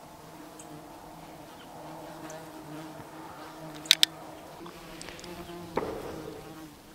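Horseflies buzzing around close by, a steady low hum. Two quick sharp clicks about four seconds in, and a softer knock near the end.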